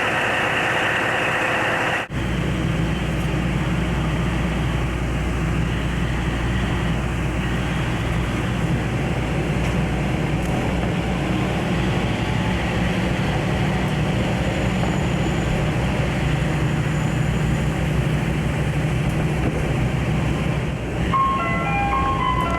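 Diesel railcar running, heard from inside the car: a steady low rumble of engine and wheels. Near the end a short electronic chime melody starts, in stepped notes.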